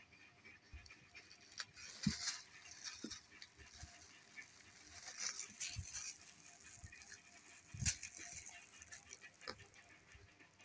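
Thin clear plastic carrier bag crinkling and rustling in irregular bursts as a kitten grabs and kicks it, with a few soft bumps. The loudest crackles come about two seconds in and near eight seconds.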